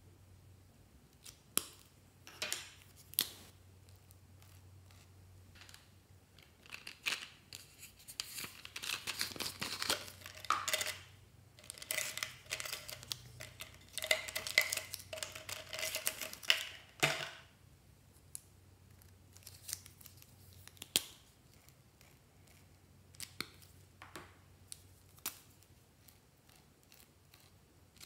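Felt-tip marker caps clicking off and on, with a clatter of plastic markers being sorted and pulled from a small plastic jar in the middle stretch.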